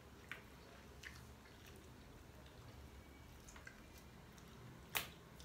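Quiet eating sounds of shellfish being picked apart by hand: a few soft clicks and crackles of shell, with one sharper click near the end.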